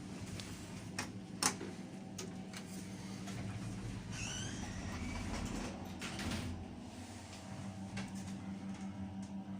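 UK Lift passenger lift in operation: a steady electrical hum from the lift's drive under the sliding of the lift doors. There are a couple of sharp clicks about a second in and a short squeak about four seconds in.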